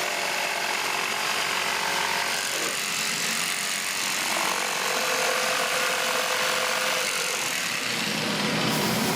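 Festool PS300 jigsaw running and cutting, a loud steady whir with hiss that starts abruptly just before and holds steady throughout.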